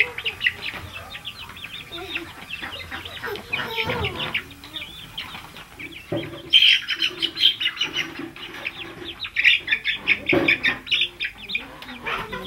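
Many birds chirping densely in quick overlapping calls, louder for a stretch from about six seconds in and again around ten seconds, with some lower clucking of chickens.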